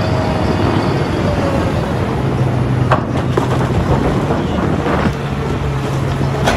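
JCB 3DX backhoe loader's diesel engine running steadily while loading mud, with a sharp knock about three seconds in and another near the end.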